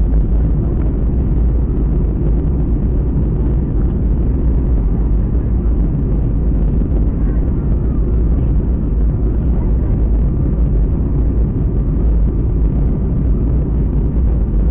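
Jet airliner cabin noise: a steady, loud low rumble of engines and airflow heard from inside the passenger cabin.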